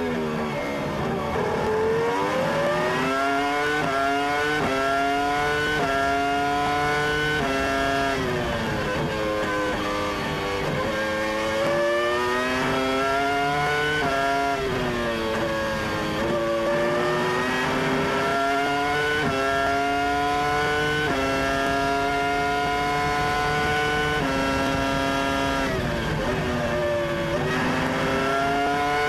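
Sauber Formula One car's 3.0-litre V10 engine at racing speed, heard from the onboard camera: the high-pitched note climbs through the gears in quick upshifts, dropping a step at each shift and rising again. It falls back through downshifts several times for the corners before climbing once more.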